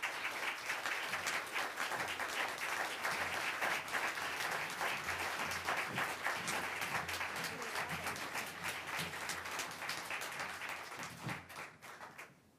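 Audience applauding steadily, a dense patter of many hands that thins out and dies away near the end.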